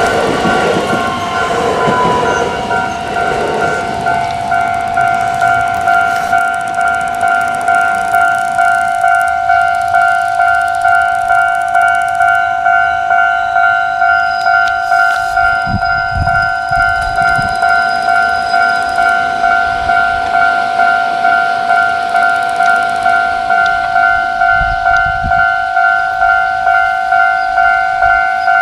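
A train passing over a railway level crossing, its noise fading within the first few seconds. A Japanese level-crossing warning bell rings on in a steady, even rhythm of about one and a half strokes a second, the crossing still closed for a train.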